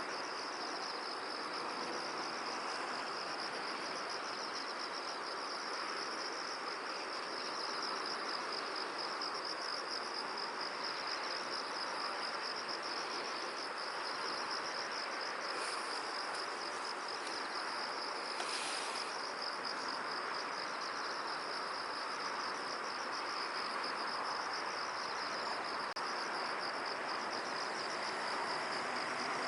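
Insects trilling steadily in a continuous high, finely pulsing chorus over an even hiss of wind in a field. Twice near the middle a brief, brighter sound cuts in.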